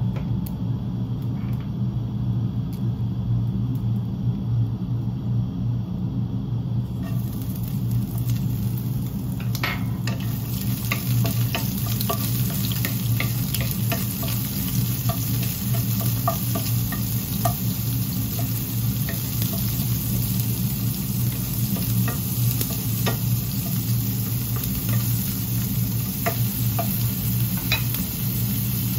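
Oil in a non-stick frying pan begins to hiss about seven seconds in. From about ten seconds in, salted baby shrimps sizzle in the hot oil while a wooden spatula stirs them with light scrapes and taps. A steady low hum runs underneath.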